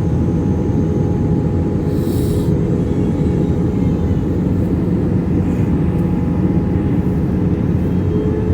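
Steady low rumble of an airplane landing, with a brief high hiss about two seconds in.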